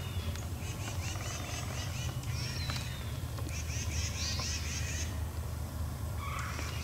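Songbirds chirping and calling in woodland, many short repeated notes, over a steady low rumble.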